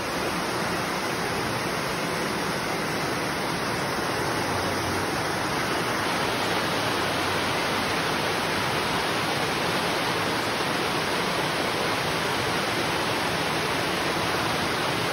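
Steady rush of a shallow stream tumbling over rocks.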